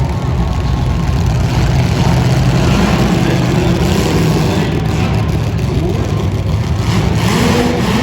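Several demolition derby car engines running loud and revving up and down together.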